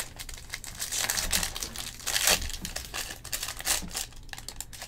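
Foil wrapper of a 2020 Bowman Jumbo baseball card pack crinkling and tearing as it is ripped open by hand, in uneven crackling spurts.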